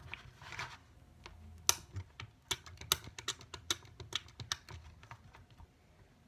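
Butter slime with foam being kneaded and squeezed by hand, giving irregular sharp clicks and crackles.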